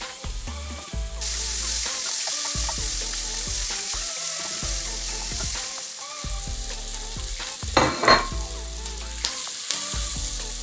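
Chopped onion and bell peppers sizzling as they fry in hot oil in a pot, stirred with a spoon. A brief, louder clank rings out about eight seconds in. Background music plays underneath.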